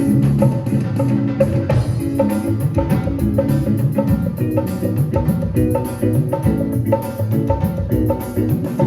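Instrumental music with a steady drum beat under sustained melodic notes, played through a sound system during a sound check.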